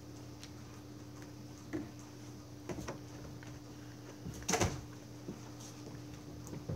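A steady low room hum with a few short knocks and rustles over it. The loudest comes about halfway through.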